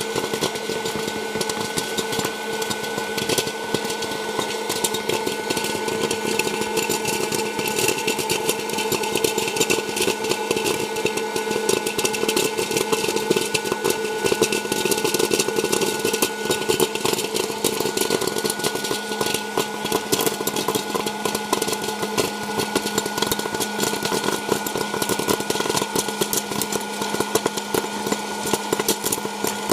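Hot air popcorn maker running with a steady fan-motor hum. Over the hum come many sharp clicks and pops from the kernels in the hot air chamber, growing busier from a few seconds in.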